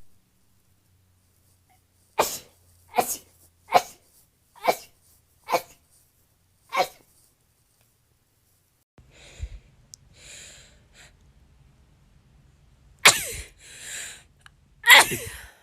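A woman sneezing: a quick run of six short sneezes, then after a pause two louder sneezes near the end.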